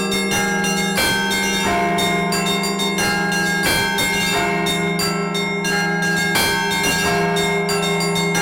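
Russian church bells in a festive peal rung by a single bell ringer. Higher bells are struck in quick repeating patterns over a deep bell that hums on steadily.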